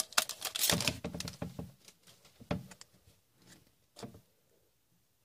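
Foil trading-card pack wrapper crinkling as it is pulled open and off the cards, dying away after about a second and a half. Then a few light clicks of the cards being handled.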